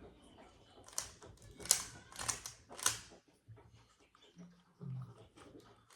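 Plastic Rubik's cube being turned by hand during a solve: irregular rapid clicks and clacks of the layers turning, with a few louder clacks in the first half.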